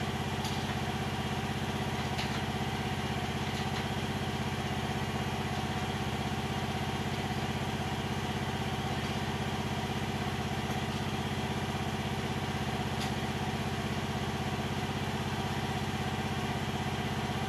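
Diggit EM15 mini excavator's engine idling steadily, with a few faint clicks.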